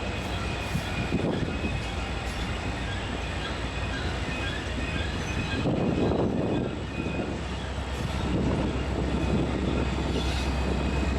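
Long loaded coal train rolling by: a steady low drone of diesel locomotives over wheel-on-rail rumble, with faint high-pitched flange squeal. The engine drone grows louder near the end.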